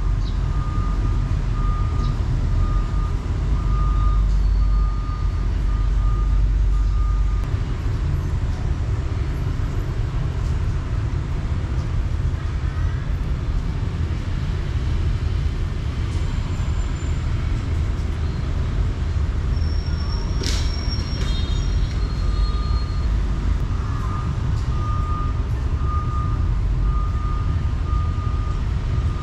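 A steady low engine rumble with an electronic beep repeating about twice a second; the beeping stops for a long stretch in the middle and starts again near the end. A single sharp click comes about two-thirds of the way through.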